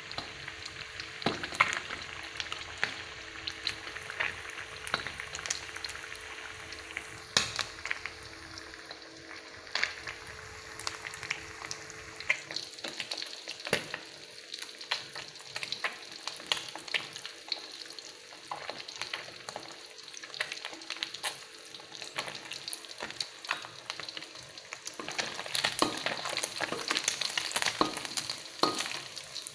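Whole fish frying in hot oil in a wok, sizzling with a steady hiss and frequent sharp crackles and pops, with a spatula stirring and turning it now and then. The crackling grows louder and busier for the last few seconds.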